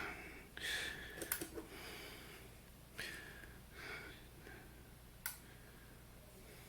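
Faint scattered handling noises: a few soft rustles and light clicks, over a low steady hum.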